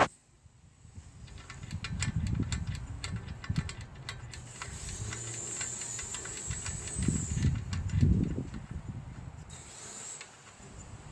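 The thumb screws of an Amphenol Ethernet connector being turned by hand to fasten it into a camera-stand base: a run of small clicks with rubbing and handling noise, and a steady hiss in the middle.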